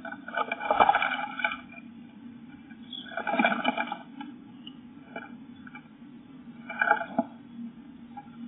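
Great tit fluttering and scrabbling inside a wooden nest box: three bursts of wingbeats and claws scraping on the wood, over a steady low hum.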